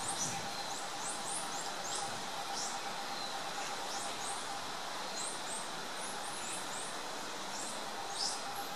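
Birds chirping: short high rising chirps, often in quick runs of two or three, repeating throughout over a steady background hiss.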